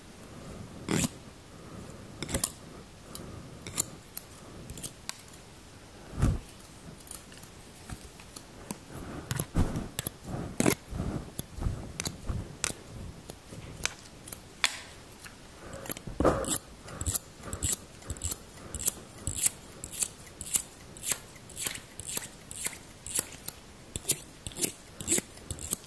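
Barber's scissors snipping right at a furry microphone windscreen, a few scattered snips at first, then a steady run of about two snips a second through the second half, with some softer rustling of the fur in between.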